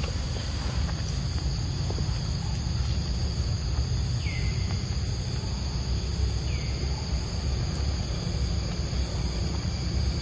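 Insects buzzing steadily in a high, unbroken drone over a constant low rumble. Two short falling calls come about four seconds in and again at six and a half seconds.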